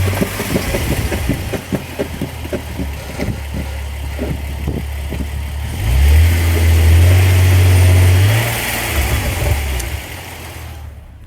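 BMW E46 330ci's inline-six engine running as the car moves, growing louder and steady about six seconds in, then easing off and fading near the end. The driveline has a freshly replaced guibo (driveshaft flex disc), the fix for the noise it had been making.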